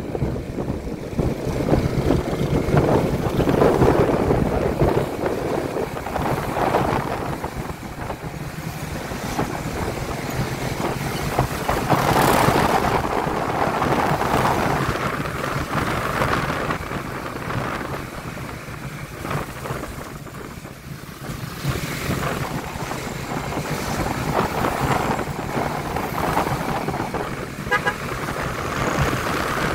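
Honda CB150X single-cylinder motorcycle under way in traffic: the engine runs under wind and road noise that swell and fade. A vehicle horn toots briefly near the end.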